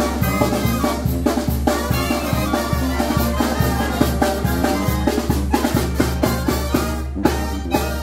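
Oaxacan banda de viento playing live: sousaphone, trumpets, clarinets and trombones over a bass drum and cymbals keeping a steady beat.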